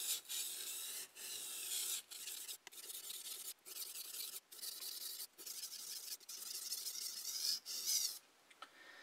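A kitchen knife's blade scraping back and forth on a wet whetstone in a run of strokes about one a second, stopping near the end. The knife is being sharpened one side at a time, working along the edge from heel to tip.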